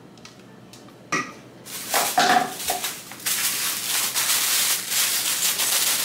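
Clear plastic packaging bag crinkling and rustling as blender parts are pulled out and handled. It starts about two seconds in, after one light click, and is loud and crackly.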